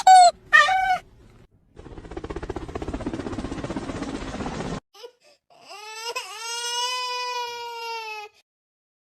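A cat meowing in short, loud, bending calls, then a rough, rapidly pulsing noise for about three seconds, then one long, drawn-out yowl.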